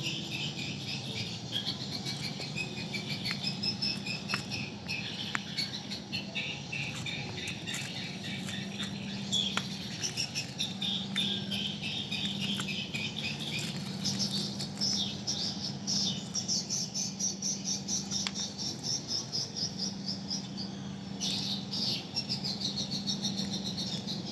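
Many rapid high-pitched chirps and trills from small animals, birds or insects, going on and off throughout, over a faint low hum.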